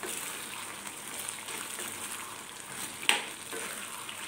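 Fried vegetable manchurian balls sizzling in a thick soy-chilli sauce in a non-stick wok over a high flame, being stirred and turned over with a wooden spatula. There is one sharp knock about three seconds in.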